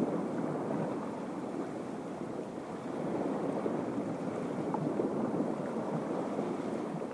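Steady rushing of sea surf washing on a rocky shore, mixed with wind on the microphone.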